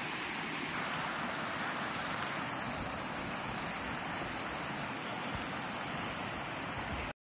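Fast mountain stream rushing over rocks, a steady, even rush of water that cuts off abruptly near the end.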